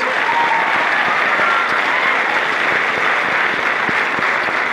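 Large crowd applauding steadily, a dense unbroken clapping.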